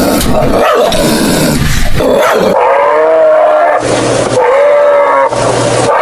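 A dog vocalising for the first couple of seconds. Then the sound changes to a different animal's call, given twice, each call about a second long and fairly steady in pitch.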